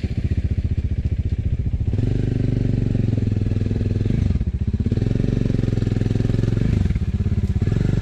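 Motorcycle engine running steadily under way, close to the microphone, its note dipping briefly about halfway through and again near the end.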